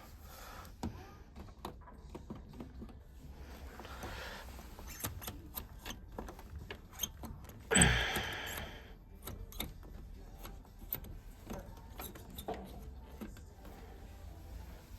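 Handling of a Bosch front-loading washing machine: scattered light clicks and knocks, with one louder rushing clunk about eight seconds in, as the drum and fittings are worked by hand to check the bearings, which sound good.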